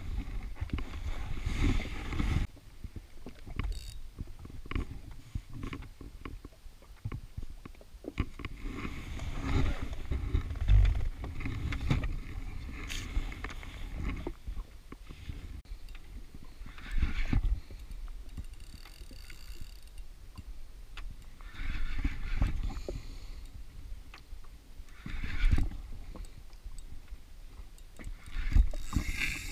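Water slapping against a jet ski's hull and wind rumbling on the microphone, with scattered knocks and clicks from handling a spinning rod and reel.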